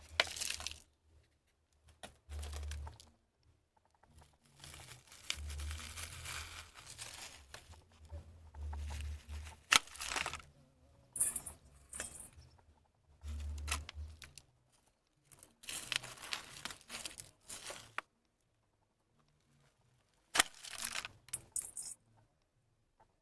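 Thin plastic seedling cell tray crinkling and crackling in bursts as it is squeezed and flexed to push out soil plugs, with rustling potting soil and a couple of sharp clicks.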